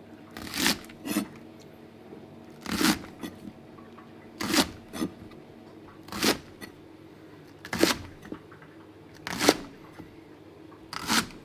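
A kitchen knife cutting through thick white stalks of large green onion and meeting a plastic cutting board, one short, crisp cut about every one and a half to two seconds, some followed by a lighter second touch.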